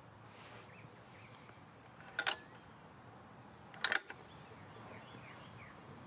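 Two sharp clicks a little under two seconds apart, from a hand handling the generator's plastic T-grip recoil starter handle, over a quiet outdoor background with faint bird chirps. The engine is not started.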